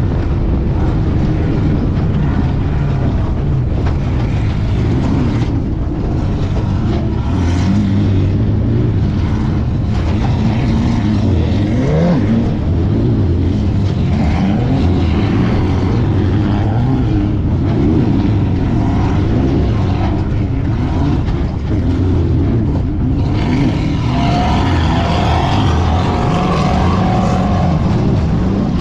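Engine of a Class 1500 unlimited off-road race car running hard, heard from inside the car over a constant rumble of driving noise. The engine pitch rises and falls as the throttle is worked.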